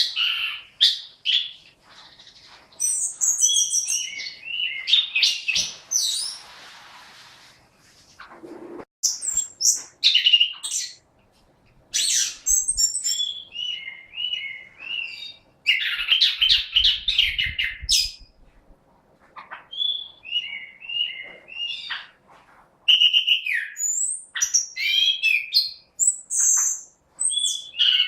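Chestnut-capped thrush (anis kembang) in full song, giving runs of quick, varied whistled and chattering notes separated by short pauses.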